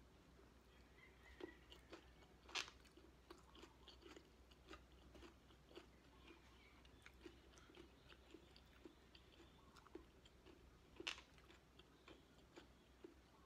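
Faint, close-up chewing and mouth clicks of a person eating with their fingers, with two sharper, louder crunches, one a few seconds in and one near the end.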